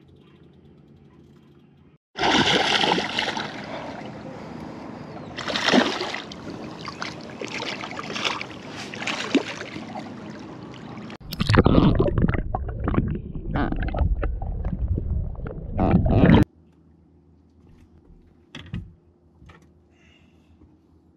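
Water splashing and churning as a hooked spiny dogfish shark is reeled to the side of the boat. Near the middle comes about five seconds of loud rumbling and knocking, after which it falls quiet apart from a few clicks.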